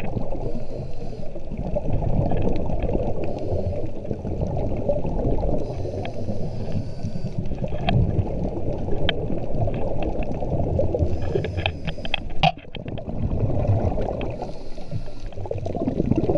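A scuba diver breathing through a regulator, heard underwater: about four hissing inhalations a few seconds apart, with a loud bubbling rumble of exhaled air between them and scattered sharp clicks.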